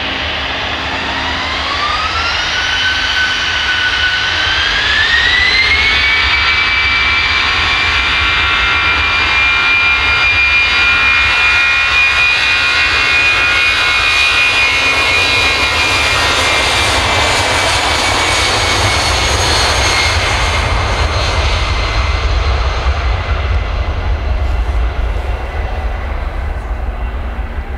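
Airbus A319-112's two CFM56-5B turbofan engines spooling up to take-off power: a whine rises in two steps over the first six seconds, then holds steady and loud as the jet starts its take-off roll. From about twenty seconds in the whine fades, leaving a broad low rumble as the aircraft rolls away down the runway.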